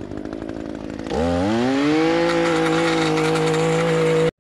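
Small two-stroke engine of a handheld lawn tool running unevenly at low speed, then throttled up about a second in, its pitch rising to a steady, loud full-throttle whine. It cuts off suddenly near the end.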